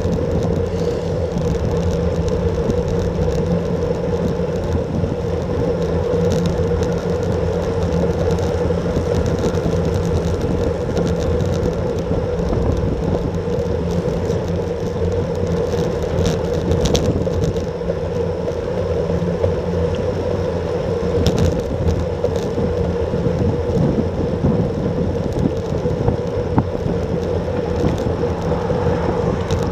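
Steady wind rush and tyre-on-asphalt road noise picked up by a handlebar-mounted action camera on a road bike riding at about 30 km/h, with a few faint clicks partway through.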